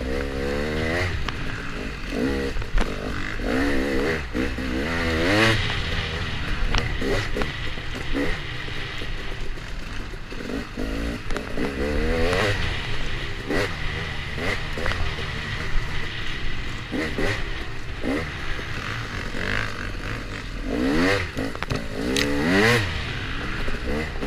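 Dirt bike engine revving hard and easing off, over and over, its pitch climbing in several long pulls and dropping back in between, with clattering underneath.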